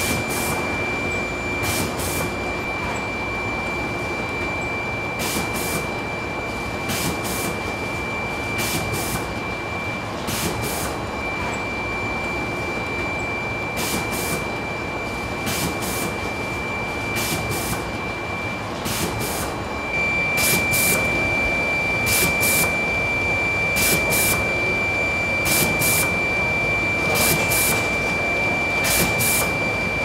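Manjū production-line machinery running: a steady high whine over a machine hum, with pairs of sharp clicks about every second and a half, a little louder from about twenty seconds in.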